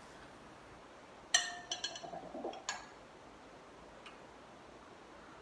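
Small measuring tube clinking against a glass jug of water. One sharp clink about a second in rings briefly, then a few lighter clinks and taps follow.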